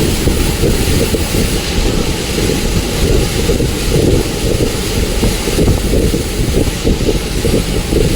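A moving bus runs steadily, giving a continuous low rumble of engine and road noise with a hiss above it.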